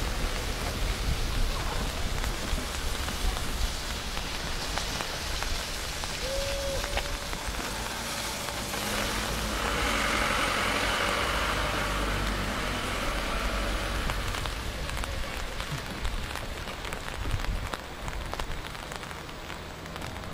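Steady rain falling on harbour water and the quayside. It is heavier for a few seconds midway.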